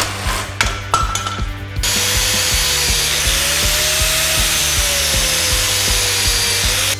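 Angle grinder cutting through a rusted steel leaf-spring shackle. It starts about two seconds in with a dense, steady hiss of the disc on steel, while the motor's whine sags and recovers under load. A few metallic knocks come before it.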